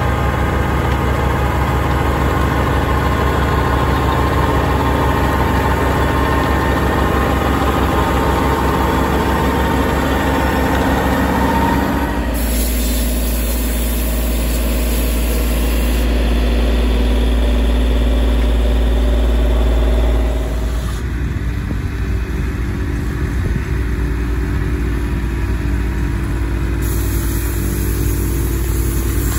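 Fendt 314 Vario tractor engine running steadily under load while it works the field with a front-mounted power harrow and a planter. Its low hum gets stronger about twelve seconds in and eases back after about twenty seconds.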